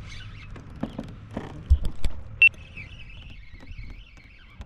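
Sharp knocks and clicks of a fishing rod and spinning reel being handled on a plastic kayak while a hooked fish is being played, followed by a thin, wavering high whine.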